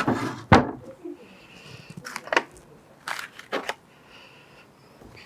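Metal clicks and scrapes of a wire circlip being worked into its groove on a Honda CT110 motorcycle fork: two sharp clicks in the first second, then a few more around two and three seconds in.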